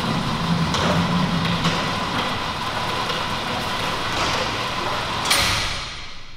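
Overhead sectional garage door rolling down on its tracks with a steady running noise. It hits the floor with a bang about five seconds in, and the noise dies away.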